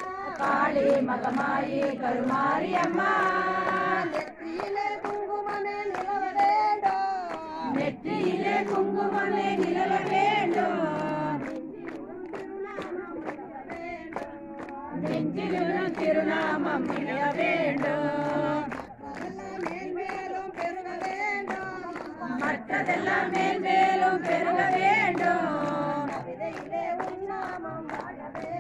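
A group of worshippers singing a Tamil devotional hymn together, phrase after phrase with short breaks between, over a regular beat of sharp ticks.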